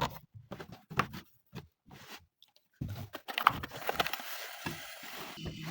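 Scattered clicks and knocks, then rustling and scraping of handled parts. About five seconds in, a steady low electric hum of the refrigerator's motor starts up.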